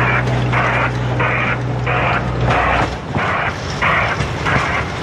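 Botchan Ressha's diesel-powered replica steam locomotive giving off a rhythmic steam-style chuffing, about one and a half chuffs a second, over a low engine hum that drops away about halfway through.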